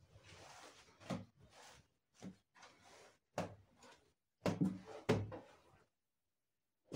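Folded cotton saree being handled on a table: cloth rustling, with a series of short soft thumps as the folded saree is set down, patted and lifted, the loudest few about four and a half to five seconds in.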